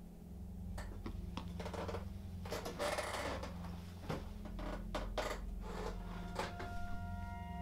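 A steady low drone with scattered clicks and crackles from about a second in and a burst of hiss about three seconds in; sustained musical tones come in about six seconds in.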